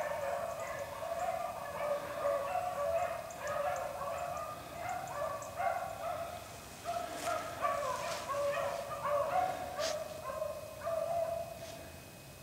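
A pack of beagles baying in many overlapping voices as they run a rabbit on its scent trail. Near the end the baying briefly thins out.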